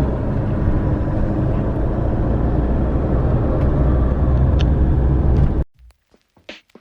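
Steady low road and engine rumble heard from inside a moving vehicle. It cuts off abruptly about five and a half seconds in.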